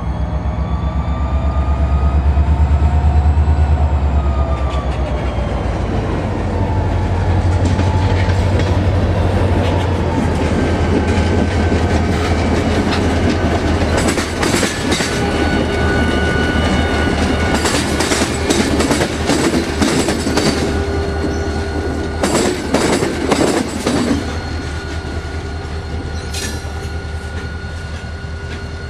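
EMD 645 diesel locomotive running under load with a heavy low rumble. A whine rises for the first few seconds, then drops about four seconds in. Later come bursts of clicking as the wheels cross rail joints, and a thin steady squeal.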